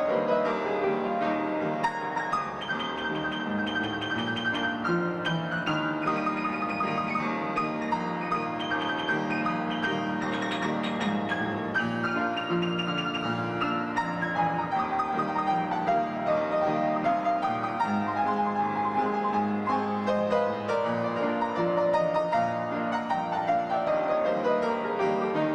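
Piano music, a flowing line of notes with quick runs sweeping downward several times.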